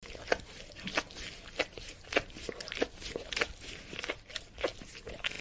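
A dog licking, with sharp lapping sounds repeating unevenly about twice a second.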